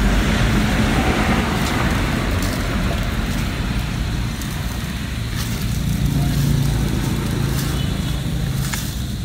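Road traffic going by: a steady rumble of vehicle engines and tyres. It is louder in the first few seconds and eases off, with a low engine drone in the middle.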